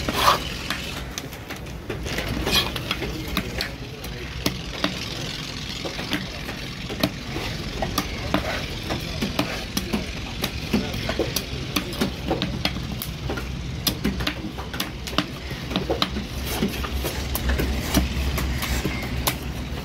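A large knife scraping scales off a fish and cutting it on a wooden chopping block, a run of rapid scrapes and short knocks, over a steady low rumble.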